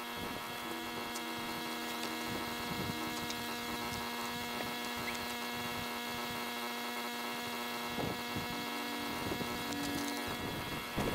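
A steady hum with several held overtones, constant in pitch, with a few faint knocks.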